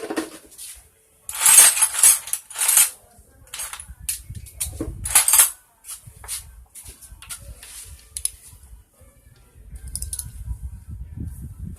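Metal motorcycle engine parts and hand tools clinking and clattering during engine disassembly, with a cluster of loud clanks between about one and three seconds in and another around five seconds.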